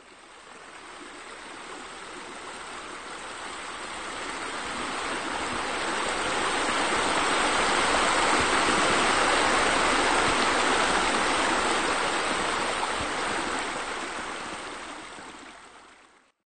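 Running water, a steady rush with no separate splashes, that fades in, is loudest about halfway through and fades out shortly before the end.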